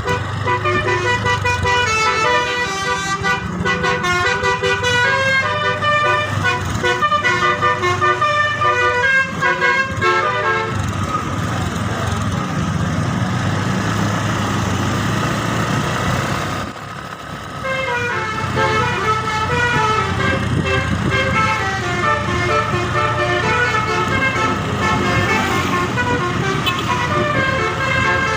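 Bus telolet horn playing a fast melody of many short, quickly changing notes, with the bus's engine humming underneath. The tune breaks off about ten seconds in for a noisier stretch without clear notes, then starts again about eighteen seconds in.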